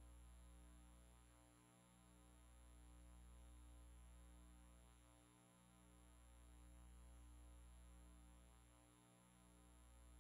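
Near silence: a faint low hum that dips and swells about every three and a half seconds.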